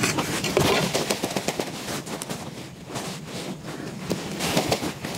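Dense crackling and rustling of dry soil, dead leaves and ginger roots as gloved hands dig into and pull at a ginger clump, with many sharp crackles throughout.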